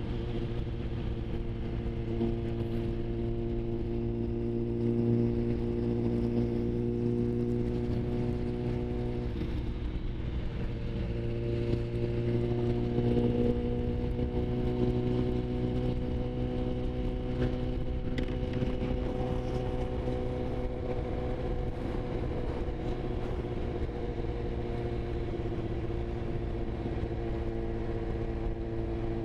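Sport motorcycle engine running steadily while cruising, heard from the rider's position with wind noise over the microphone. The engine note changes about ten seconds in, then settles again.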